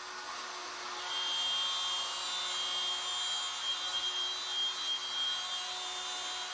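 Wood router on a Legacy Ornamental Mill CNC running with a steady high whine, getting louder about a second in.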